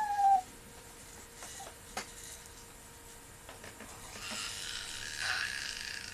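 A seven-month-old baby making a raspy, croaking throat sound in imitation of a horror-film ghost's death rattle, starting about four seconds in and running on. Before it, the sound is mostly quiet, with a single click about two seconds in.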